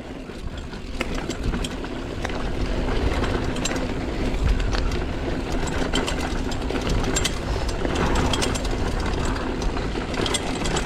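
Mountain bike rolling fast down a dirt trail: steady tyre and riding noise with scattered clicks and rattles from the bike, and wind rumbling on the microphone.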